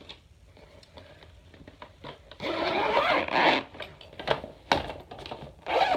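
Zipper on a fabric carrying bag being pulled: one long rasping zip of about a second, starting about two and a half seconds in. Then come a few sharp knocks and a shorter burst of rustling near the end.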